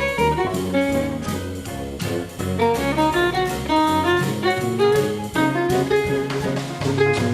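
Upbeat jazzy background music with a walking bass line, melodic lead instruments and a steady beat.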